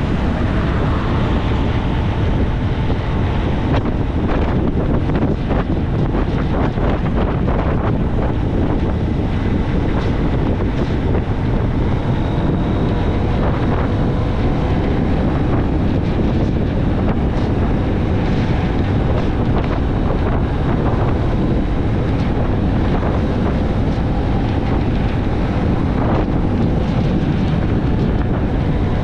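Wind buffeting the microphone of a moving motorbike, a steady loud rush, with a faint engine note drifting slightly in pitch beneath it.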